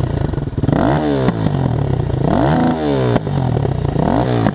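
KTM 530 EXC single-cylinder four-stroke enduro engine with an aftermarket CRD exhaust, blipped three times from idle: each rev climbs quickly and falls back toward idle.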